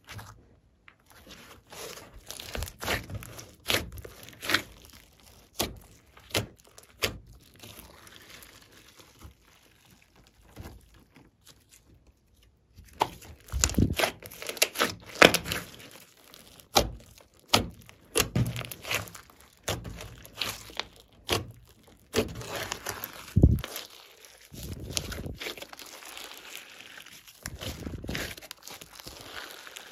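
Hands squeezing, stretching and folding a thick glossy slime mixed with clay and glitter, making a run of sticky wet clicks and pops of varying loudness, with a quieter spell a little before the middle.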